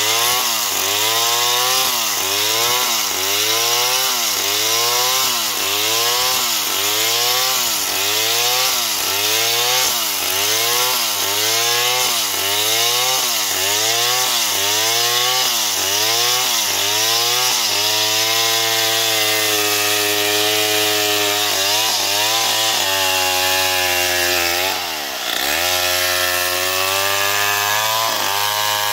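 Old Stihl two-stroke chainsaw ripping lengthwise through a palm log at high revs. The engine pitch rises and drops back about once a second for the first half, then holds steady. Near the end it dips sharply and briefly, then climbs back.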